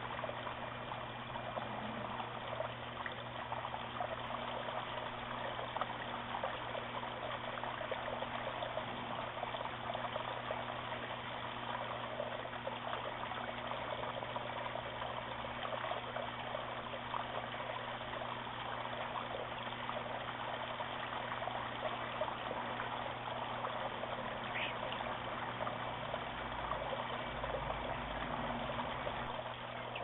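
Water trickling steadily over the stones of a backyard waterfall and bird bath, with a steady low hum beneath it, heard through a trail camera's small microphone.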